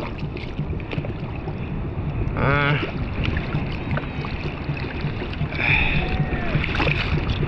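Seawater sloshing and splashing around a surfer's GoPro out in the surf, with wind on the microphone. A brief wavering pitched call comes about two and a half seconds in, and a fainter one comes near six seconds.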